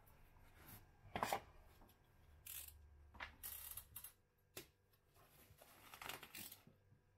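Plastic wrap on a stack of round stretched canvases being cut and pulled off, heard as short, irregular crinkling and scraping rustles. The loudest comes about a second in.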